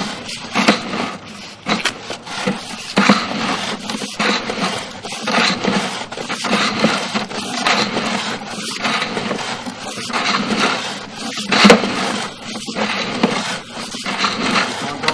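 Irregular scraping with frequent short knocks and clicks from a sewer inspection camera's push cable being fed along a storm drain pipe.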